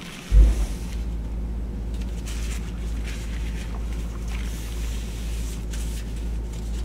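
A paper towel rubbing over a stainless-steel sink in faint, soft strokes, over a steady low rumble that starts with a thump about a third of a second in.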